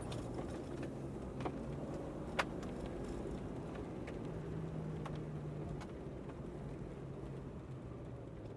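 Vehicle driving: steady engine and road rumble with a low hum that shifts in pitch, and two sharp clicks in the first few seconds.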